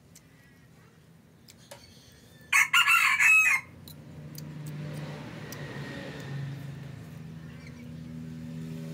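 A rooster crows once, a loud call of about a second that starts about two and a half seconds in. A low steady hum follows.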